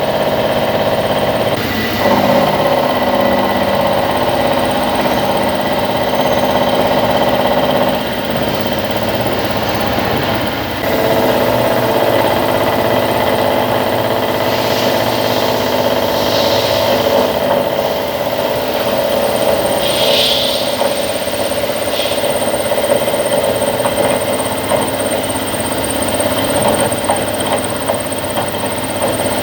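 Hitachi Seiki VM50 vertical machining center milling a steel mold with a 35 mm cutter at about 1000 rpm: a steady, loud whine of spindle and cut, its tone shifting a few times as the cut changes. A couple of brief hisses come near the middle.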